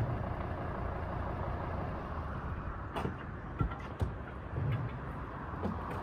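Steady rumble of road traffic passing on the bridge overhead, with a few sharp clicks and knocks about halfway through as a car door is unlatched and swung open.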